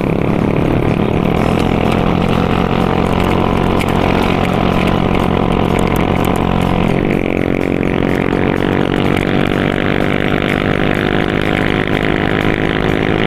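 Motorbike engine running at a steady cruise with road and wind noise, with background music over it; the engine note or the music changes abruptly about seven seconds in.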